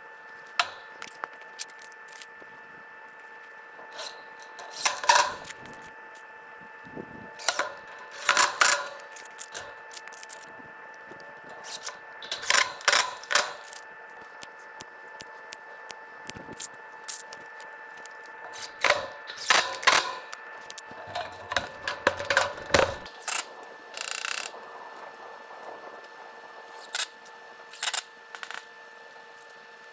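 Intermittent clinks and rattles of perforated metal strapping and tools being handled against a wire cattle panel, in short bursts every few seconds, over a faint steady hum.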